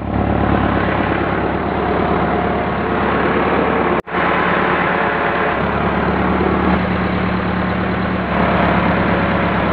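Massey Ferguson 375 tractor's diesel engine running steadily, cut off for an instant about four seconds in.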